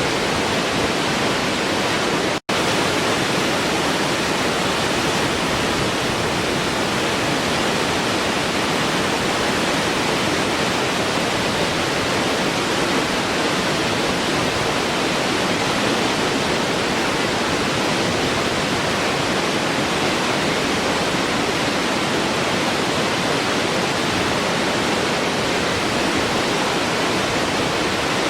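Waterfall: a steady, even rush of falling water, cutting out for an instant about two and a half seconds in.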